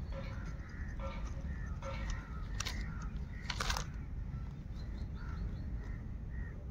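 Crows cawing several times, about a second apart, over a steady low rumble, with two sharp clicks near the middle.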